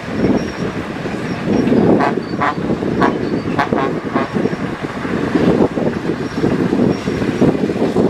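Heavy diesel engines of dump trucks and a crawler bulldozer running together in a dense, rough rumble. From about two seconds in, a quick run of sharper, higher-pitched sounds comes through, ending a little after four seconds.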